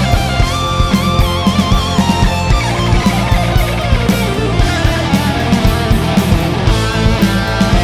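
Heavy metal band playing: distorted electric guitar lead line with bends and vibrato over bass, keyboards and a steady drum beat.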